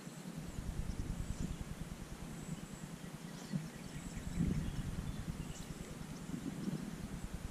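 Outdoor ambience by a lake: an uneven low rumble of wind on the microphone from about half a second in, with a few faint, high bird chirps.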